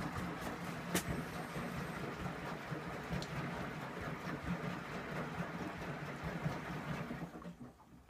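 Candy Aquamatic 2 compact washing machine running empty on a descaling wash, a steady hum with a sharp click about a second in; the hum dies away about seven and a half seconds in.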